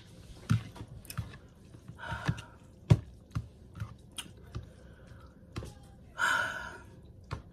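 Wet chewing and mouth smacks from eating spicy instant noodles, with irregular clicks. There is a short breath out about two seconds in and a longer, louder breathy exhale about six seconds in, a reaction to the burn of the spice.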